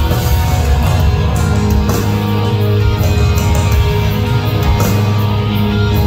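Heavy rock band playing live and loud: electric guitars, bass and drums, with cymbal crashes.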